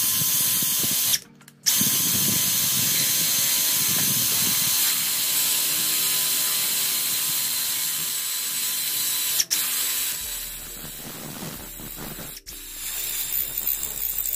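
Cazar CZ-21VD brushless cordless drill boring a 10 mm hole through 3 mm steel bar, the bit grinding steadily into the metal. The sound is sped up, with a rapid ratchet-like chatter. It cuts out briefly about a second in and is quieter for a couple of seconds near the end.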